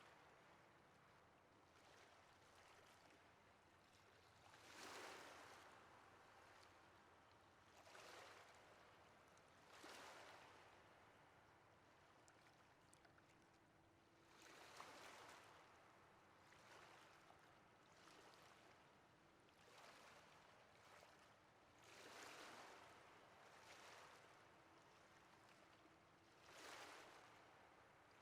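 Ocean waves breaking on a shore, quiet: a steady hiss of surf that swells into a wash every few seconds.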